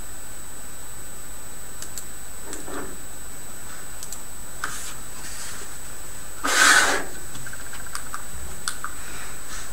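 Steady hiss with a thin high steady tone, a few faint light clicks, and one short rustling burst about six and a half seconds in.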